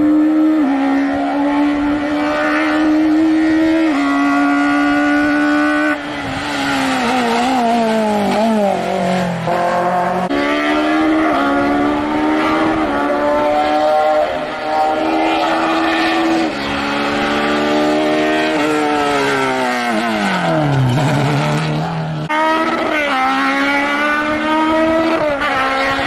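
Racing car engines at high revs, the pitch holding, stepping with gear changes and sweeping down as the cars slow. The sound breaks off and restarts abruptly a few times.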